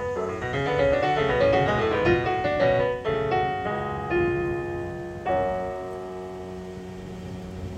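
Digital stage piano playing classical music: quick running notes, then slower single notes, and a chord struck about five seconds in that is left to die away.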